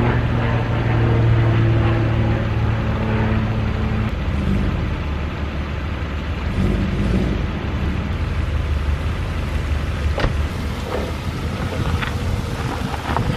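BMW E46's engine running with a steady hum, then the car reverses out of a gravel driveway, the engine note changing about four seconds in as it moves off and tyres crunching over gravel, with a few sharp clicks near the end.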